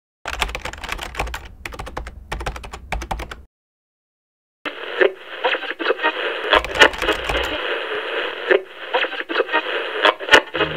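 Rapid keystroke clicks like fast typing. They stop dead for about a second, then come back thinner and narrower, mixed with crackle, as if heard down a telephone line. Music starts right at the end.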